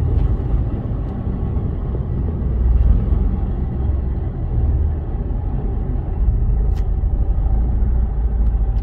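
Steady low rumble of a truck's diesel engine and running noise, heard from inside the cab.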